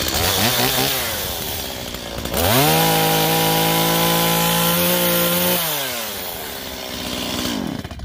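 Stihl MS 170 two-stroke chainsaw running. It gives a couple of quick throttle blips, then revs to full throttle, holds steady for about three seconds, drops back to idle, and cuts out near the end.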